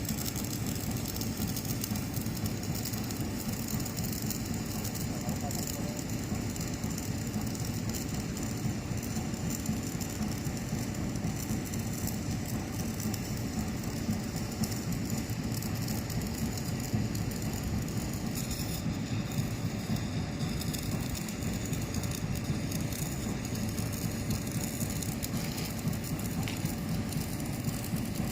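Stick welding arc from an E6013 electrode crackling steadily and without a break as the second, cover pass is run over the root weld on a galvanized iron pipe-to-flange joint.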